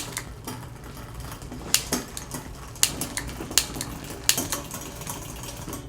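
Bicycle drivetrain being shifted through the gears on a stand with the cranks turning: about half a dozen sharp clicks from the shifter and the chain moving across the cassette cogs. This is the check of derailleur cable tension after the barrel adjuster has been unthreaded.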